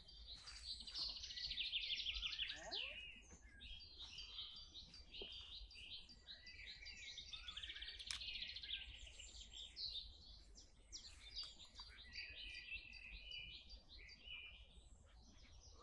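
Birds chirping and singing, with quick trilling phrases that come and go; faint.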